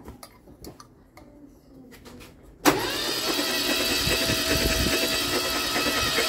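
2005 Opel Corsa 1.4 petrol engine being cranked by its starter motor with the spark plugs out for a compression test, a steady whir that starts suddenly about two and a half seconds in, after a few faint clicks. The cylinder under test, number 4, shows no compression.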